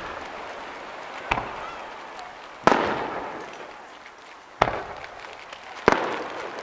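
Aerial firework shells bursting overhead: four sharp bangs, one to two seconds apart, each trailing off in a long echo.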